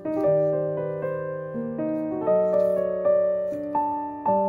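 Background piano music: a gentle melody of single notes over held chords, each note struck and then fading.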